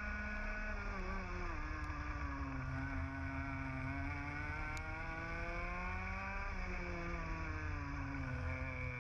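A 125 cc two-stroke TAG kart engine at racing speed, heard onboard. Its note drops as the driver lifts about a second in, climbs steadily for several seconds, dips again about seven seconds in, then starts climbing again near the end.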